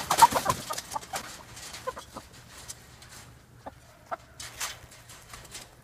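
Chickens clucking in short, scattered calls, mixed with bursts of shaking as diatomaceous earth powder is shaken from a plastic jug over the wire pen.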